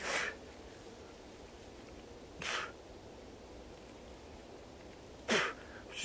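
A man's sharp, forceful exhalations, three of them about two and a half seconds apart, each one pushed out with the effort of a push-up as he tires.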